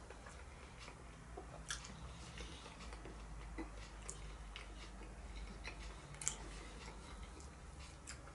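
A person chewing a mouthful of roast vegetables, quiet and close, with scattered light clicks and taps of a metal fork against the food and the cardboard takeaway box; a sharper click about six seconds in.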